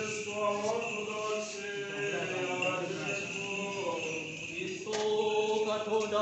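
Orthodox liturgical chant: voices singing long, held notes over a steady lower drone. A new, louder phrase begins about five seconds in.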